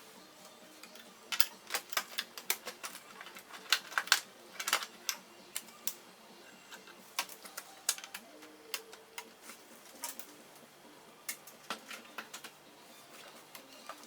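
Irregular sharp clicks and taps of small hard plastic and metal laptop parts and tools being handled during disassembly, in a quick cluster early on and then more scattered.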